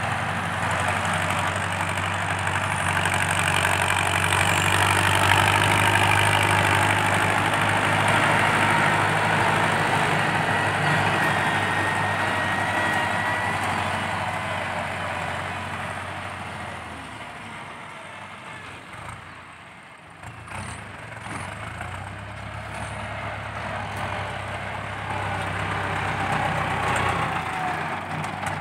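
Ford 6640 tractor's four-cylinder diesel engine working under load as its front blade pushes soil, with a loud exhaust note. The engine sound grows weaker about two-thirds through, then builds again.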